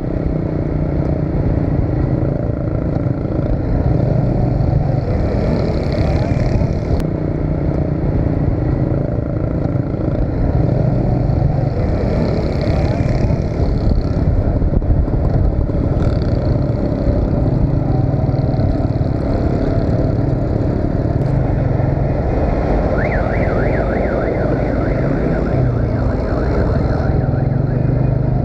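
A small motorcycle's engine running steadily beneath the rider, with wind and road noise and the hum of surrounding traffic. Near the end a rapidly warbling siren-like tone sounds for a few seconds.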